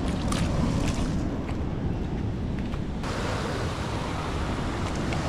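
Ocean surf breaking on a rocky shore: a steady rushing noise with wind rumble on the microphone. About three seconds in, the hiss suddenly becomes brighter.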